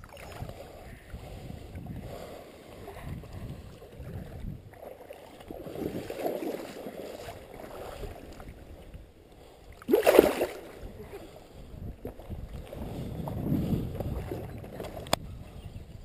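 Shallow creek water sloshing and swirling as a fish is handled at the surface and the angler wades, with one brief loud splash about ten seconds in and a sharp click near the end.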